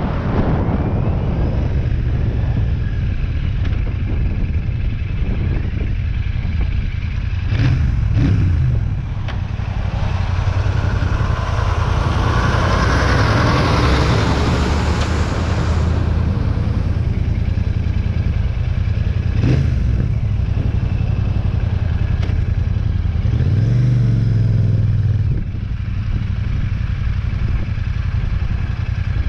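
Royal Enfield Shotgun 650's 648 cc parallel-twin engine running steadily while the bike is ridden, with the engine note rising briefly about 8 s in and again around 24 s. A broad rush of noise from a large truck passing close alongside rises and fades about halfway through. The engine settles back as the throttle closes near the end.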